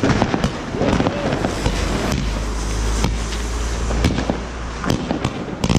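Fireworks going off: many sharp bangs and crackles in quick succession, over a low rumble in the middle.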